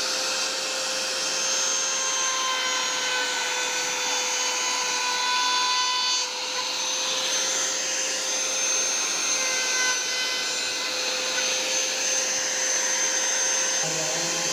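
Electric woodworking power tool running steadily, a motor whine over a hissing cutting noise, with a brief dip in loudness about six seconds in.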